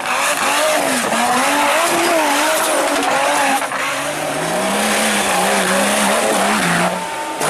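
Off-road 4x4 engine revving up and down hard under load over a steady rushing hiss. From about halfway through it holds at fairly steady revs.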